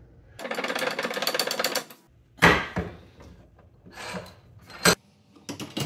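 Rapid metallic clicking for about a second and a half from hand tools on a bicycle wheel hub, then one loud sharp knock and a few lighter clicks and knocks of metal on metal.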